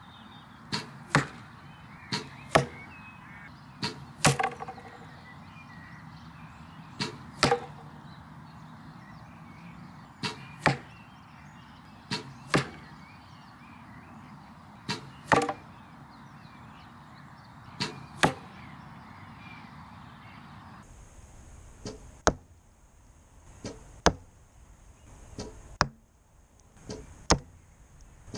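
Recurve bow shots at a foam target boss: each string release is followed less than half a second later by a louder thud of the arrow striking the target, in pairs every two to three seconds. In the last few seconds the sound changes and a quicker run of similar sharp hits follows.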